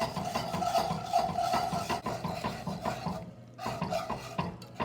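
Wire whisk scraping quickly around a skillet, working milk into a browned roux for sawmill gravy: rapid rhythmic strokes with a brief pause a little over three seconds in.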